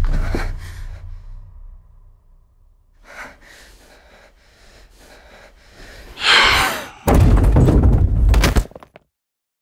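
Horror-film sound design: loud thuds dying away, a sharp gasp a little after six seconds, then a loud, harsh burst of banging noise about a second and a half long that cuts off abruptly.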